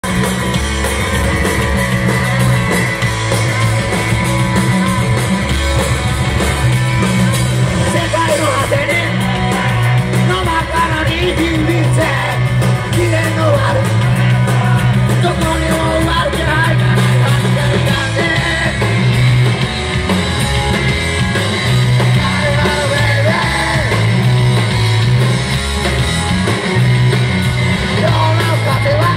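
Live rock band playing loud: electric guitars, bass guitar and drums with a singer over them, the bass line repeating every couple of seconds.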